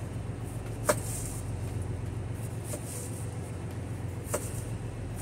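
A knife slicing an onion into thin slices, with two sharp knocks of the blade, about a second in and near the end, over a steady low hum.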